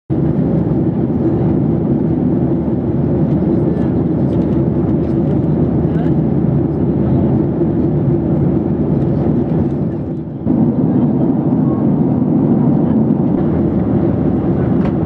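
Steady jet cabin noise inside a Boeing 737 in cruise: a loud, even, low rush of engine and airflow noise. It dips for a moment about two-thirds of the way through.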